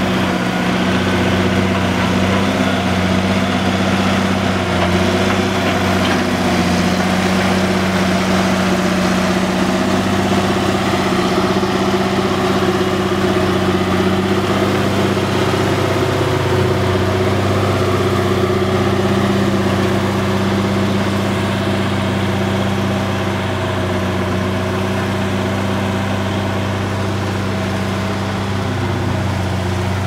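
Heavy diesel engines of a wheel log loader and a loaded logging truck running steadily under load as the loader pushes the truck up a steep slope; the engine sound eases slightly about two-thirds of the way through.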